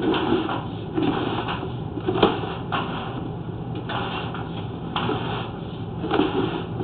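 Sewer inspection camera push cable being fed through the drain line, rattling and knocking in irregular strokes about once a second over a steady low hum.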